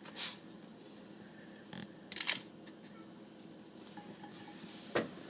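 A few brief clicks and knocks of things being handled, the loudest about two seconds in, over quiet room tone.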